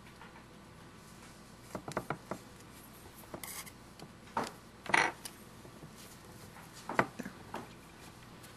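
Quiet handling sounds of crafting at a tabletop: scattered light clicks, taps and rubbing as fingers and a thin needle tool press and pull glued fabric onto a cardboard piece. The loudest click comes about halfway through.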